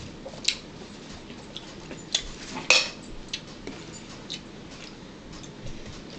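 Cutlery and dishes clinking during a meal: scattered, irregular sharp clicks and clinks, the loudest just under three seconds in.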